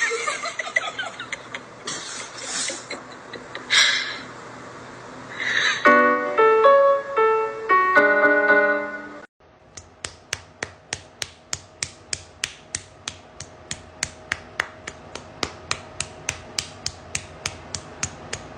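Music: a short run of keyboard notes after a few brief noisy bursts, then, after a sudden cut, a steady snapping beat of about two and a half clicks a second over a faint held tone.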